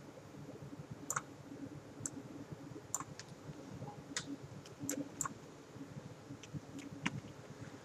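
Computer mouse clicking, about ten sharp separate clicks at irregular intervals, over a faint background hum.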